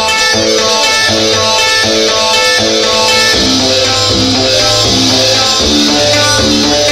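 Instrumental experimental rock track: guitar notes played in a repeating pattern over a sustained low bass, at a steady, loud level.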